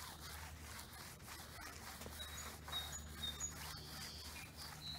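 Faint soft rubbing of a clay mitt sliding over car paint wet with clay lubricant. Short high chirps come in from about halfway through.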